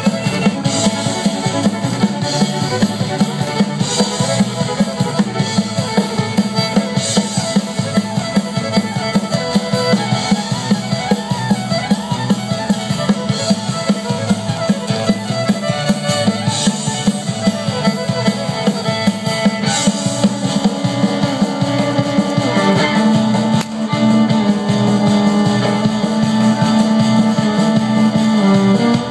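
Live band playing amplified through stage PA speakers, a drum kit keeping a steady beat under guitars. A low held note comes in over the last several seconds.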